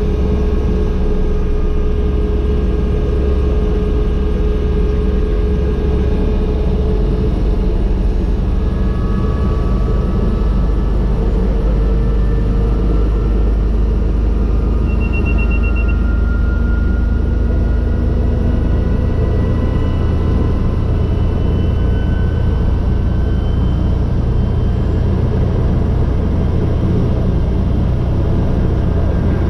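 Agusta AW119 helicopter's PT6B turboshaft engine and rotor running on the ground, heard from inside the cockpit: a steady low rumble under turbine whine that rises slowly in pitch as engine and rotor speed are brought up. A brief high beep sounds about halfway through.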